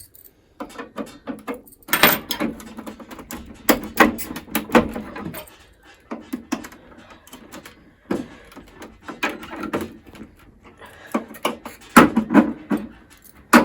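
Irregular clicks, knocks and rattles of iMac G3 plastic and metal internal parts being handled and pushed into place, in clusters with short pauses between.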